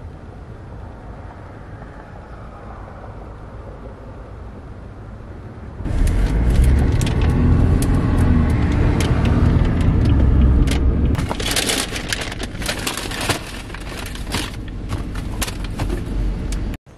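Low steady background noise, then, about six seconds in, paper takeout bags rustling and crinkling as they are handled right against the microphone, with low rumbling handling noise for the first few seconds, followed by a run of sharp crackles.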